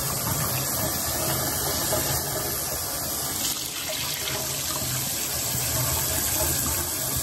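Kitchen tap running steadily, water splashing over raw chicken pieces as they are rinsed in the sink.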